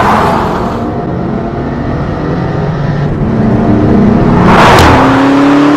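Car engine running and revving. About four and a half seconds in there is a loud whoosh like a car passing close, and after it the engine note climbs.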